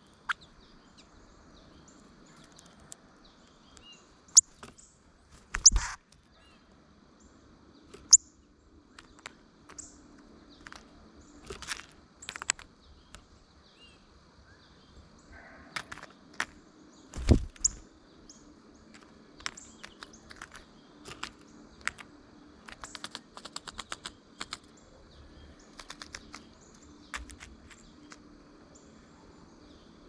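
Birds feeding on a platform feeder close to the microphone: sharp clicks of beaks pecking at seed and peanuts, in quick runs in the second half, and two louder thumps as birds land or hop on the tray. Short chirps come in now and then.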